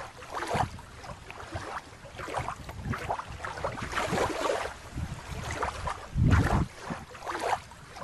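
Water splashing and sloshing in irregular bursts as a hand net is swept through shallow water, with wind buffeting the microphone.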